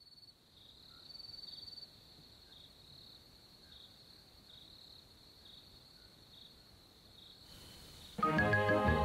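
Faint cricket chirping: a steady high trill with short chirps repeating a little under once a second. Near the end a hiss rises, and then loud organ music comes in.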